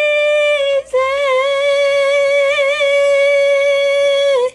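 A woman singing a high note a cappella: a short note, a brief break just under a second in, then the same note held for about three and a half seconds with a slight wobble in the middle.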